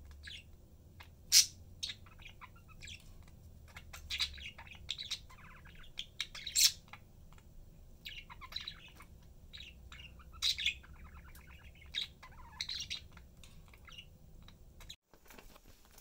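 Pet budgerigars chirping and chattering: a run of short sharp chirps mixed with buzzy chatter, the loudest chirps about a second and a half in and midway through. The sound cuts off about a second before the end.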